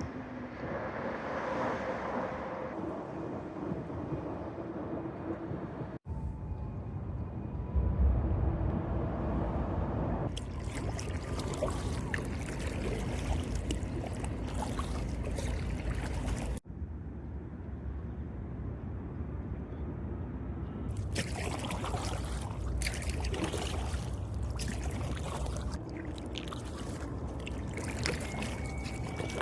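Kayak paddle strokes splashing and water trickling off the blade, over a low rumble of wind on the microphone. The sound cuts off abruptly twice and resumes.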